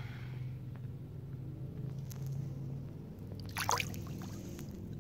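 Shallow creek water swirling and trickling around a hand held in the stream as a brown trout is released, with one short splash a little past halfway.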